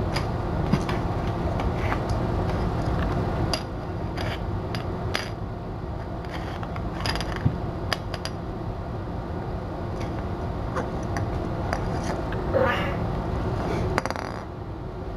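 Bengal kittens playing around a plastic treat ball and toys on a hard floor: scattered light clicks and knocks over a steady low background hum. About twelve seconds in comes one short kitten-like call.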